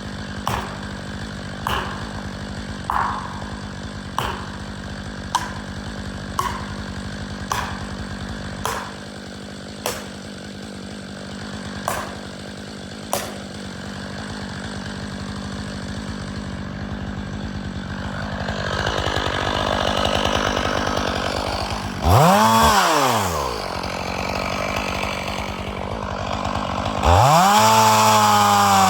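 Stihl chainsaw idling while about eleven sharp knocks land roughly once a second, then the saw revving up and back down twice near the end.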